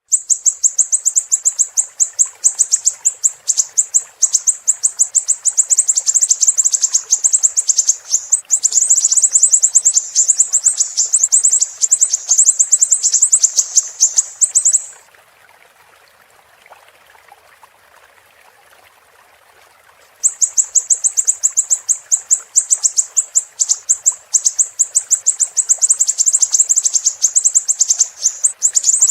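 Siri-siri bird singing: a loud, rapid, very high-pitched chattering trill of sharp chips. It stops about halfway through for roughly five seconds, leaving only a faint steady hiss, then starts again.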